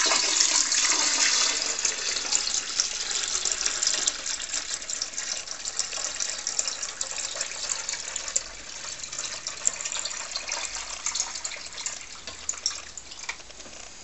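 Water poured in a steady stream from a glass carafe into the plastic water reservoir of a Delta grind-and-brew coffee maker. It starts abruptly, is loudest at first, grows gradually quieter as the tank fills, and stops near the end.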